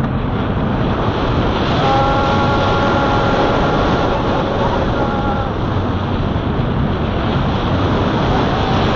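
Intamin accelerator coaster train running through its turns, heard from the front row: a loud, steady rush of wind on the microphone over the rumble of the train on the track. A steady pitched tone sits over it for about three and a half seconds from about two seconds in.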